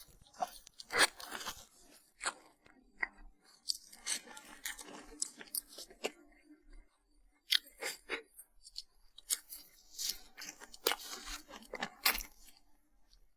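Someone chewing crisp food close to the microphone: irregular crunches in clusters, with short pauses between bites.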